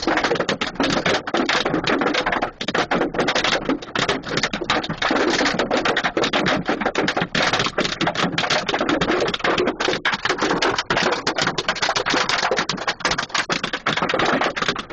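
Hailstones hitting a vehicle: a dense, rapid, continuous clatter of sharp impacts.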